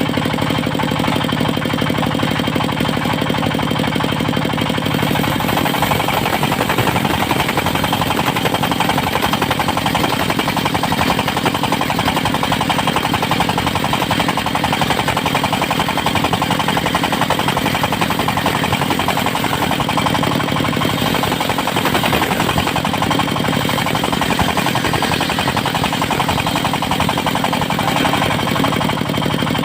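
Engine of a portable circular sawmill running loud and steady. About six seconds in, its even note breaks into a rougher, rattling sound that lasts until near the end, when the steady note returns: the saw is cutting through a teak log under load.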